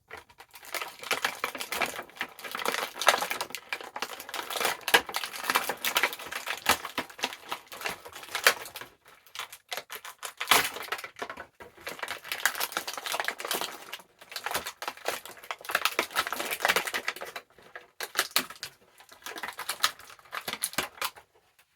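Action-figure packaging being handled and opened: rapid clattering clicks and crinkles of plastic trays and cardboard, in runs with short pauses.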